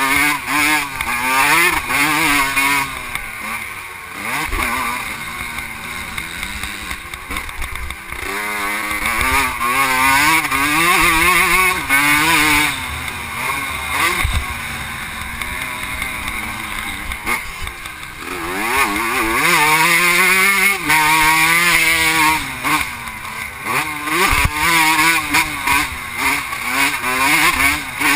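A vintage 125cc two-stroke motocross bike's engine under race load, revving up high and dropping back over and over as the rider accelerates and shifts. A few sharp thumps come from the bike hitting bumps.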